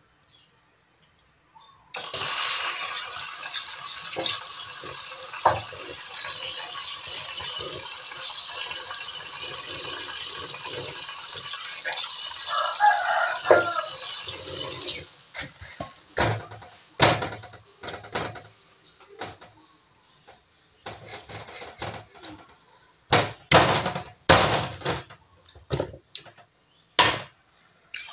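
Tap water running into a stainless steel sink while raw chicken is rinsed under it. It starts about two seconds in and shuts off about halfway, followed by scattered knocks and splashes of the chicken being handled in the sink. A rooster crows in the background near the middle.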